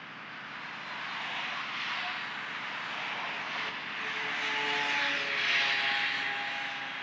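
A car passing on the road, its tyre and engine sound swelling over several seconds to a peak about five seconds in, then easing off.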